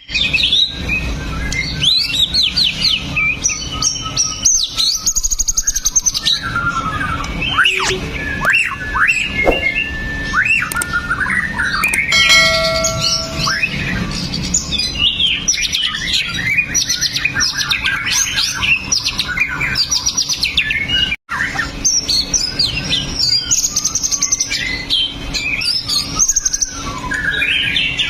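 White-rumped shama (murai batu) singing a fast, varied song of whistles, gliding notes and chattering trills, with a held buzzy note about halfway through. The song breaks off for an instant about 21 seconds in, then carries on.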